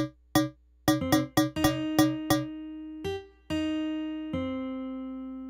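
Music: a keyboard with an electric-piano sound playing a quick run of short, detached notes, then three long held notes that slowly fade.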